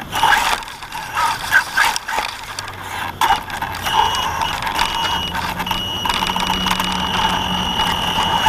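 Axial Yeti RC rock racer driving, its motor and drivetrain whining, with a steady high squeal from about a third of the way in. The owner puts the squeal down to a bearing damaged when the front left wheel hit a tree.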